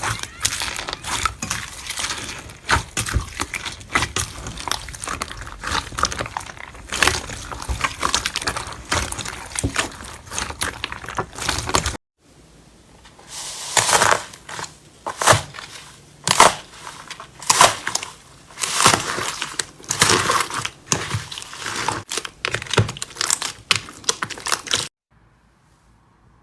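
Slime being squeezed and pressed by hand, crackling and crunching. After a sudden cut about halfway, a second batch gives separate crunchy presses about once a second, then it goes quiet near the end.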